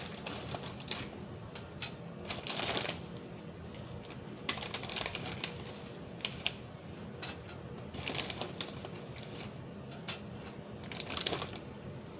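Light, irregular clicks and short rustles: square snap pretzels being set down one at a time on a metal baking sheet, with the pretzel bag handled in between.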